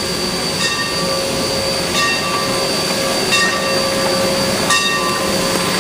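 Steam locomotive moving slowly along the track, with a steady hiss and running noise under a ringing metallic clank that repeats about every second and a half.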